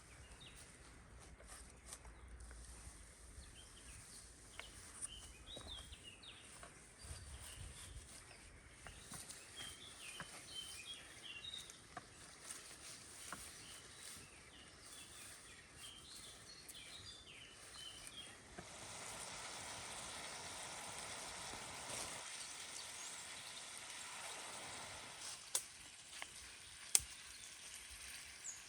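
Small birds chirping now and then over quiet forest ambience. About two-thirds of the way through, a steady hiss rises and then fades, and a few sharp clicks come near the end.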